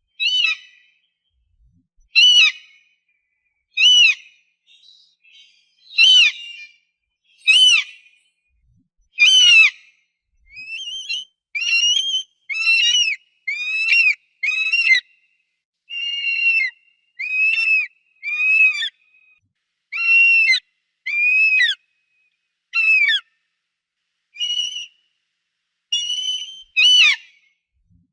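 Eagle calling: a series of piercing, high cries, each arching and falling in pitch, about one every two seconds at first, then a quicker run of shorter cries from about ten seconds in.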